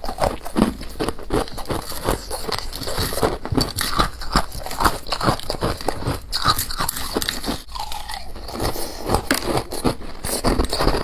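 Close-up crunching of a person biting and chewing freezer frost: many quick, irregular crackly bites and crunches.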